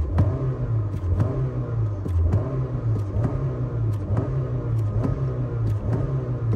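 Honda car engine revved over and over as the accelerator is pumped, its note rising and falling repeatedly over a steady low rumble. Sharp clicks come now and then.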